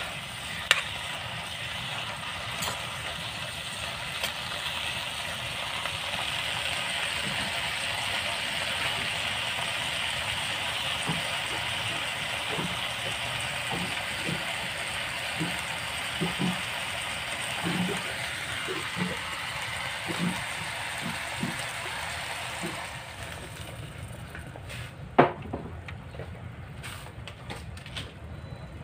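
A wok of kangkong and vegetables cooking hot over a gas burner: a steady hissing sizzle with soft bubbling pops, which eases about 23 seconds in. There is a light clink near the start and a sharp knock about 25 seconds in.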